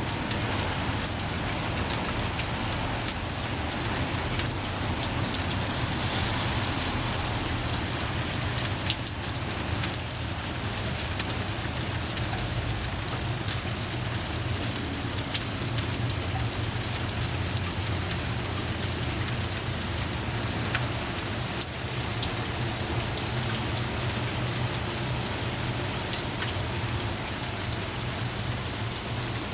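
Steady rain falling, with sharp ticks of single drops hitting a surface scattered through it, over a low steady hum.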